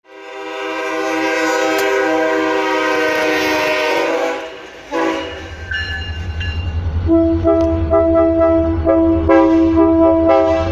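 Train air horn sounding a long held chord for about four seconds, then a quick blast, then a rapid string of short horn blasts over a low rumble from the locomotive.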